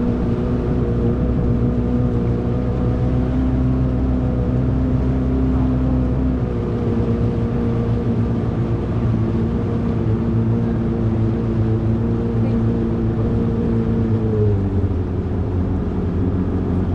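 Motorboat engine running steadily under way. Its deep rumble drops about six seconds in, and the engine note falls again near the end as the boat throttles back.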